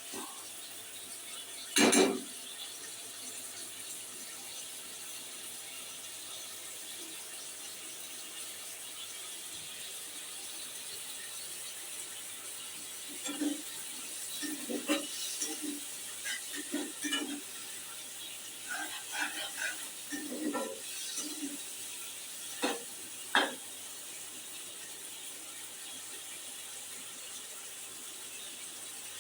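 Spiced curry with fried potatoes sizzling steadily in a kadai as it is stir-fried down (kosha). A spatula gives one loud knock against the pan about two seconds in, then scrapes and clatters in bouts through the middle of the stretch.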